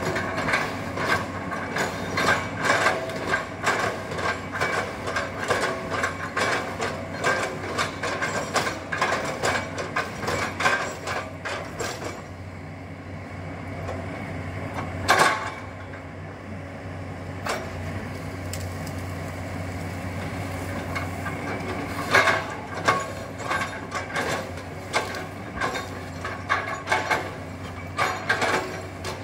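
Excavator working, its engine running with a steady low hum under dense, irregular metallic clanks and knocks. The clanking eases off for several seconds in the middle, broken by one loud knock, then starts again.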